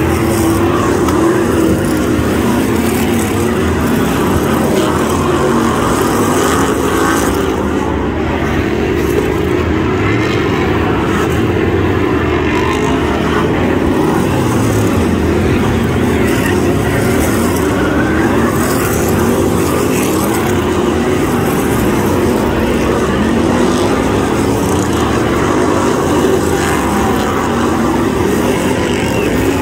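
A pack of BriSCA F1 stock cars' V8 engines racing flat out, loud and continuous, many engines overlapping with their pitch rising and falling as the cars pass close by.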